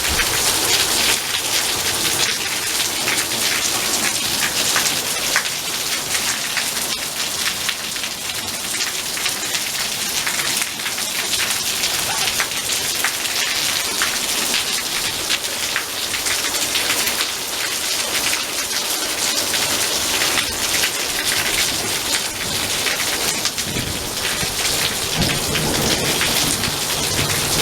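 Heavy rain pouring down in a thunderstorm: a steady, dense hiss with many drops spattering close by. A low rumble of thunder rises near the end.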